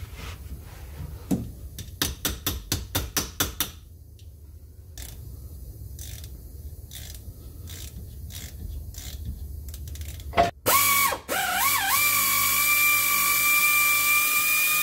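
A hand socket ratchet clicks in a quick run of about eight strokes on a half-shaft flange bolt, followed by a few scattered clicks. From about ten and a half seconds in, a power ratchet runs, its whine wavering up in pitch and then holding steady as it spins the bolt.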